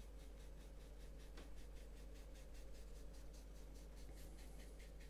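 Faint, rhythmic swishing of a soft blending brush stroked quickly back and forth across wet acrylic paint on a canvas panel, over a steady low hum.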